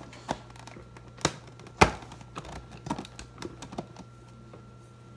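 Plastic blender jar and lid knocking and clicking as the lid is pressed on and the jar, full of Hot Cheetos, is seated on the blender base. There are about six separate clicks, the loudest about two seconds in.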